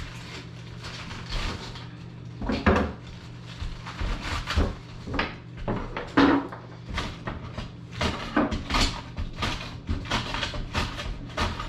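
Knives cutting and coring raw cabbage heads on a wooden cutting board, making irregular cuts and knocks against the board, the loudest about three seconds in and again about six seconds in.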